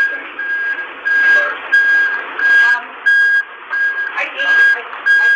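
Vehicle warning beeper sounding a steady series of short, same-pitched electronic beeps, about three every two seconds.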